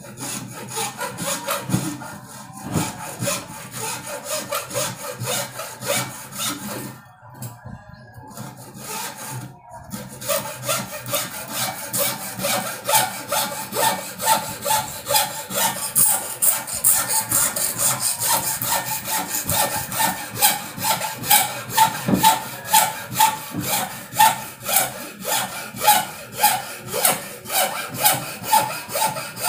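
Hacksaw cutting through a block of hard red angsana (sono kembang) wood held in a vise, in steady back-and-forth strokes about two a second. The sawing stops briefly twice, about seven and nine and a half seconds in, then resumes.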